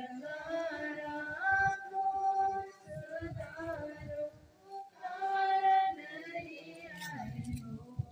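Worshippers singing a hymn in Mundari, long held notes sliding from one pitch to the next, with a short break between phrases about four seconds in.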